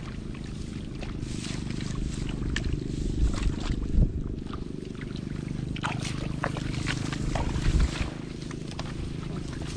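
Hands groping and splashing in shallow muddy paddy water among rice stalks: scattered small splashes and rustles, with louder splashes about four and eight seconds in, over a steady low rumble.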